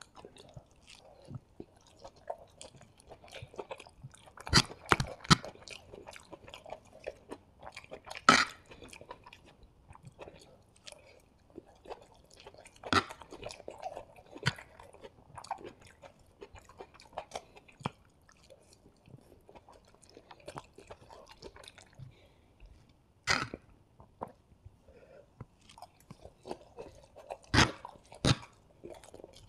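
Close-miked chewing and mouth sounds of a person eating hakka noodles with a fork, a busy scatter of small wet clicks with louder sharp clicks now and then, a cluster of them about four to five seconds in and another near the end.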